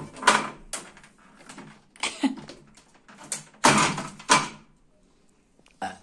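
Knocks and clatters of refrigerator shelves and containers being taken out and set down: several sharp hits with pauses between them, the loudest about four seconds in.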